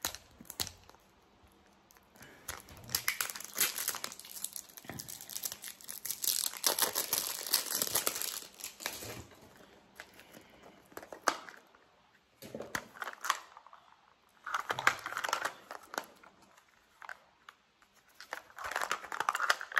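Crinkling and tearing as a plastic Mini Brands capsule ball is peeled open by hand, its seal and wrapping rustling in irregular bursts with short pauses between them.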